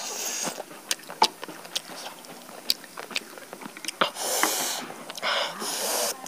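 Close-miked eating of roasted chicken by hand: wet chewing with many sharp mouth clicks, and from about four seconds in, longer rushes of noise as the meat is torn from the carcass.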